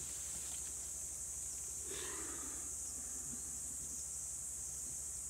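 A steady high-pitched insect drone, such as cicadas or crickets, with a brief breathy rustle about two seconds in while a Komodo dragon works a wild boar carcass down its throat.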